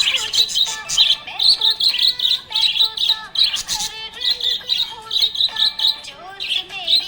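Budgerigars chirping and warbling in a busy, unbroken run of quick high chirps.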